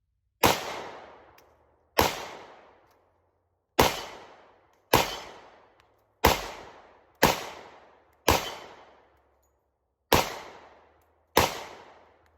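Nine single shots from a 10mm Glock 20 pistol fitted in an MCK conversion kit, fired at an uneven pace about a second or so apart. Each shot is followed by a short echo that dies away.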